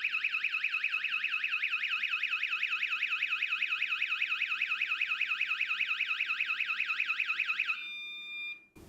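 Siren of a cheap battery-powered magnetic-contact door alarm squealing very loudly in a fast, rising-and-falling warble. Set off by separating its magnet, it keeps sounding until disarmed, even with the magnet brought back. It cuts off about eight seconds in, leaving a faint steady tone for a moment.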